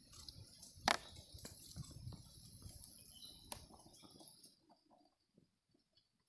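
Faint clicks and taps of a diesel filter element and its aluminium filter bowl being handled. There are two sharper clicks, about a second in and a little past the middle, and then near silence for the last couple of seconds.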